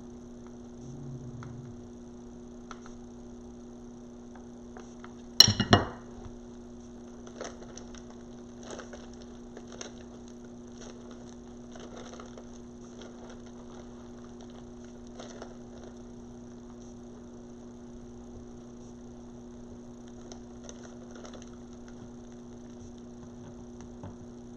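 Quiet, scattered handling clicks and rustles of rope being wrapped and hot-glued, over a steady electrical hum. About five and a half seconds in comes one sharp clatter of a hard object knocked or set down.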